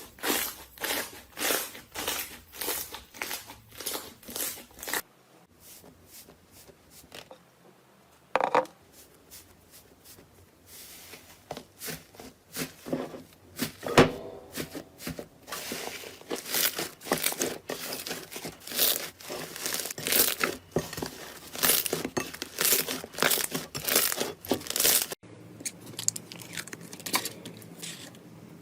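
Slime being squeezed, pressed and stretched by hand, giving sticky crackling and squelching in rows of short bursts. The sound breaks off abruptly about three-quarters of the way through and goes on as quieter handling.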